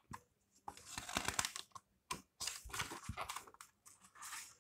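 Stiff pages of a hardcover picture book being turned and handled, the paper rustling in three short bursts.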